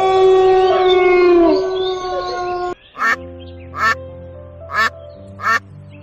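Background music with held notes, then after a sudden cut four short, loud animal calls, about one a second, over quieter music.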